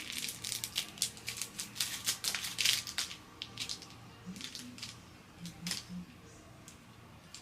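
Plastic packaging crinkling and small parts clicking as a microblading pen and its packaging are handled, busy for the first few seconds and then only now and then.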